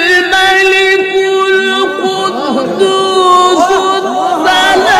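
Male Qur'an reciter (qari) holding one long, steady note in a single breath. From about two seconds in, other voices call out over it in rising and falling cries.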